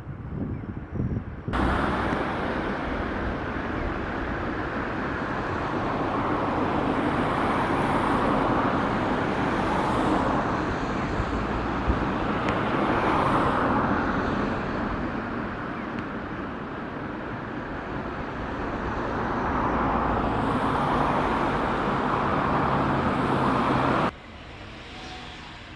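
Road traffic noise: several cars pass one after another, each swelling and fading, over a steady rush of tyres on the road. The sound starts and stops abruptly.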